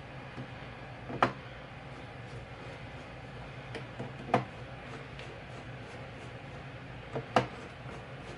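A hand tool clicking against steel scope-ring screws as the ring cap screws are slowly tightened: three sharp metallic clicks about three seconds apart, with fainter ticks between them, over a low steady hum.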